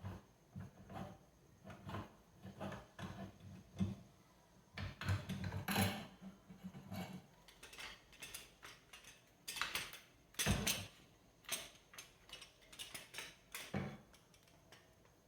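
Irregular metallic clinks, clicks and knocks of hand tools and parts being handled on a washing machine's agitation mechanism, with louder clusters of knocks about five seconds in and again about ten seconds in.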